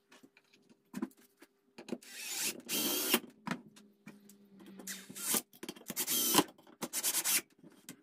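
Cordless 18 V drill-driver driving screws into a wooden frame joint. A few light clicks of handling come first, then a longer run of driving and several shorter bursts in the second half.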